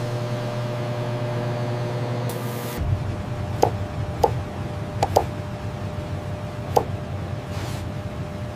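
Steady machine hum with a brief cloth-rubbing hiss against steel near the end of it; then, after a change of room tone about three seconds in, a stylus pen tapping on a graphics tablet: about five short sharp clicks, irregularly spaced, two of them in quick succession.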